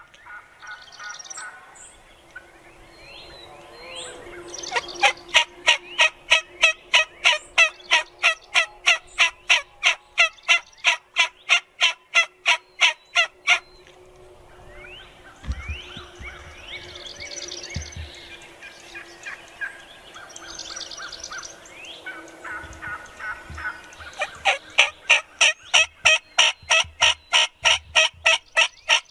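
Wild turkeys calling: two long runs of loud, rhythmic yelping at about four notes a second. Between the runs come quieter warbling gobble-like calls.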